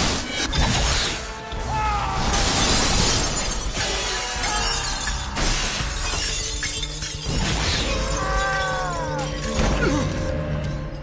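Movie fight sound effects: a run of crashes and impacts with glass shattering, over film score music.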